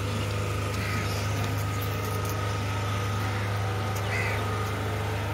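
A steady low machine hum with a faint, even high tone above it, unchanging throughout.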